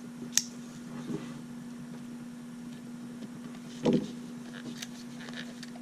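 Plastic retail packaging being handled and worked at to get it open: a sharp click about half a second in, a duller knock just before four seconds, and a few faint crinkly ticks, over a steady low hum.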